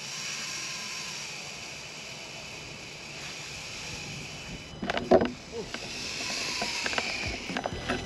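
A run on a carp rod: line streams off the reel's free spool with a steady high buzzing while the bite alarm sounds, as a hooked carp takes line fast. A short shout breaks in about five seconds in, and a few clicks follow near the end.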